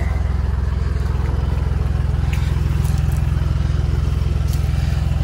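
Tractor's diesel engine idling steadily close by: a low, even rumble with a fast regular beat.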